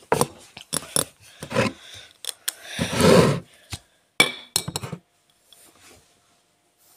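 Handling noise: sharp knocks, clicks and rubbing against the phone's microphone as it is moved about, with a glass jar of scrunchies being picked up and handled. A louder rubbing rustle about three seconds in, and it goes much quieter after about five seconds.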